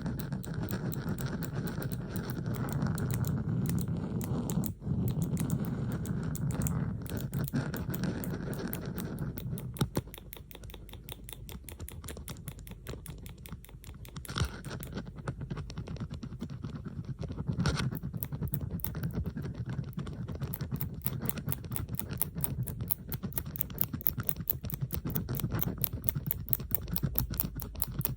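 Metal bobby pins clicking and scraping in dense, rapid ticks, several recordings layered together. A fuller rustling layer sits under the clicks for the first third or so, and the ticking turns quick and even toward the end.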